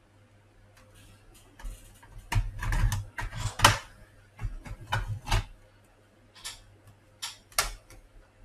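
Plastic pry pick being worked along the seam of an Acer 4739 laptop's plastic casing to open it: a run of irregular clicks and short scrapes, busiest about two to four seconds in, with a few more clicks later.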